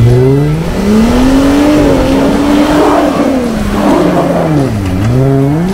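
Lifted Jeep Wrangler's engine revving under load while climbing a rocky, muddy off-road trail. The pitch rises over the first second or two, holds, drops back about five seconds in, then rises again near the end.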